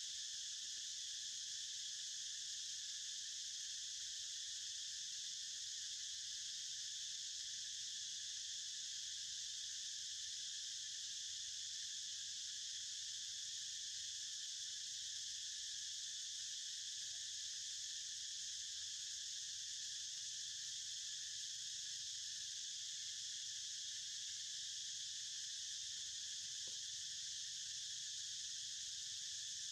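Steady, high-pitched drone of an insect chorus that holds unchanged throughout.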